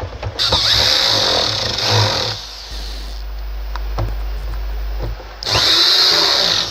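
Cordless drill/driver running in two bursts, each about one to two seconds, driving screws into the plastic base of an induction cooker. There is a steady low hum between the bursts.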